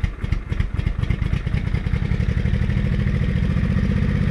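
Honda Shadow VT500C V-twin engine idling cold, just started on the choke. The firing is uneven for about the first two seconds, then settles into a steadier, slightly faster idle. It runs without any clunk now that the broken and loose bolts behind the noise have been fixed.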